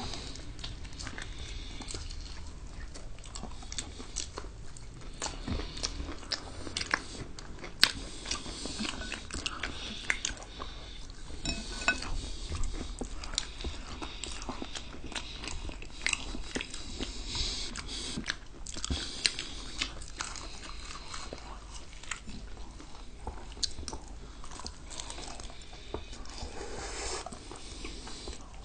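Two people eating fried chicken close to the microphone: biting and chewing, with many short, sharp mouth clicks scattered throughout.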